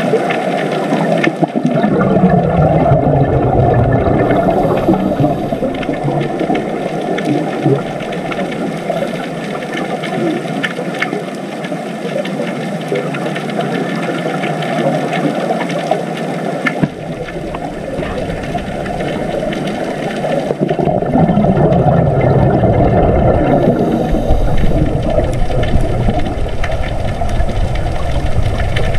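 Underwater ambience recorded with the camera: a steady, loud rushing rumble of water noise. The deepest part of the rumble cuts out for a few seconds past the middle and then returns.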